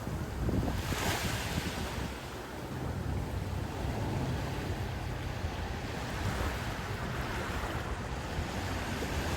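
Ocean surf washing on the beach, a steady wash of water noise, with wind rumbling on the microphone.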